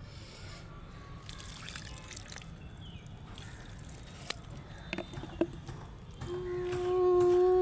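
Water trickling and dripping while potted plants are watered, with a few light knocks. About six seconds in, a woman starts humming a steady held note, the loudest sound.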